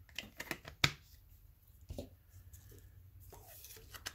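Hands handling a sealed Funko Soda tin can: scattered light clicks and taps of fingers and nails on the metal, with one sharper click about a second in.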